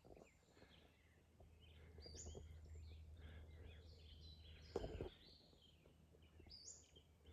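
Faint birdsong: many short chirps and calls. A brief low thump about five seconds in.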